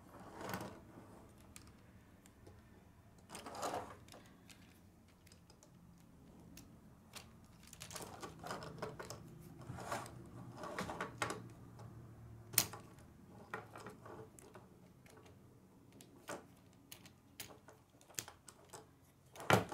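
K'nex plastic rods and connectors clicking and rattling as they are handled and fitted into the model, in faint irregular clicks, with a sharp snap about halfway through and another near the end.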